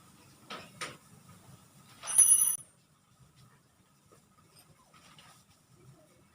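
A folding bicycle's bell rings once, briefly, about two seconds in: a high, clear ring lasting about half a second. Just before it come two short rubbing strokes, like a cloth wiping the bike, and faint rubbing follows.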